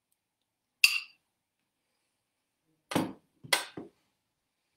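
A spoon clinks once against a metal baking pan, a short bright ring. About two seconds later a bowl is set down on the countertop with three quick knocks.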